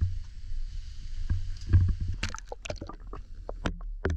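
Muffled low rumble with a run of sharp knocks and clicks through the second half: handling noise on a camera being moved over the ice and lowered into the water.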